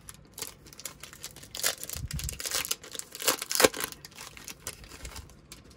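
Foil wrapper of a Bowman baseball card pack crinkling and tearing as it is ripped open by hand: a run of sharp crackles, loudest about three and a half seconds in.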